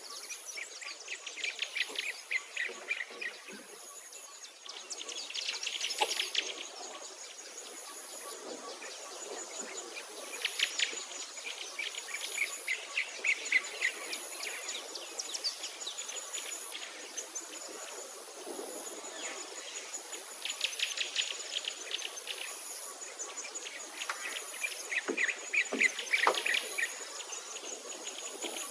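Birds singing in bursts of rapid trills, over a high insect chirp that pulses about once a second.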